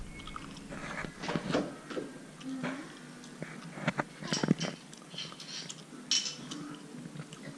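Scattered light clicks and knocks of small objects being handled on a tiled floor by a toddler, the sharpest about four and a half and six seconds in, with a brief baby coo about two and a half seconds in.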